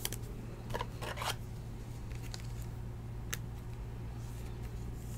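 A foil trading-card pack and cards being handled by hand, giving a few brief crinkles and clicks, mostly in the first half, over a steady low hum.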